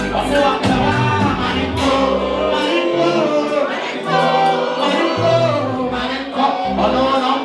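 A song with a singing voice over a bass line that moves in steps.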